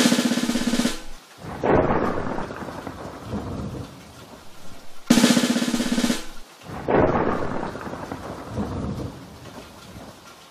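A sound effect played twice, about five seconds apart: a sharp pitched hit lasting about a second, then a thunder-like rumble that fades over a few seconds.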